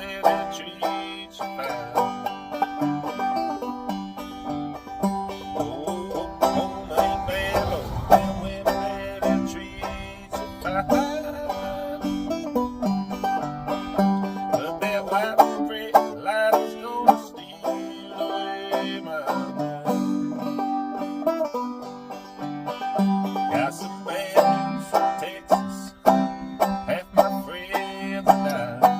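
Five-string banjo played clawhammer style: a steady, rhythmic run of plucked notes and strummed brushes.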